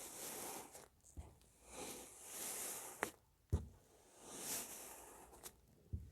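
Kinetic sand being worked by hand or tool: several swells of gritty, crumbly hiss about a second long, broken by four short soft thumps as pieces drop or are pressed down.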